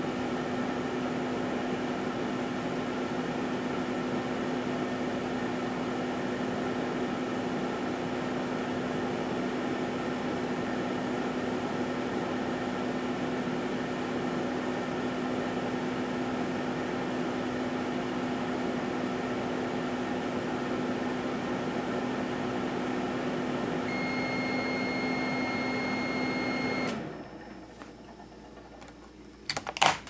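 A 1978 GE Dual Wave microwave oven runs with a steady hum. About three seconds before the hum cuts off, a high steady beep sounds, marking the end of the cooking time. Then come a couple of sharp clicks.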